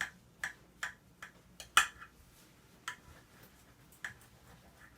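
Knife blade clicking against the bottom of a glass baking dish while slicing through a meatloaf: about eight sharp, irregular clicks, the loudest a little under two seconds in.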